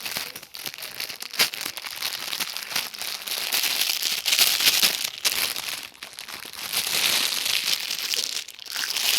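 Plastic packaging crinkling and rustling as a squishy toy in its wrapper is handled, a dense crackle that swells louder around the middle and again near the end.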